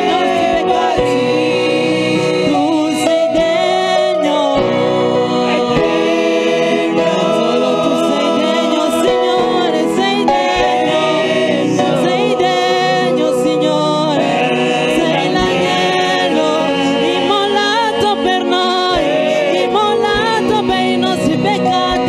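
Gospel worship song sung by a group of voices, choir-style, with steady accompaniment.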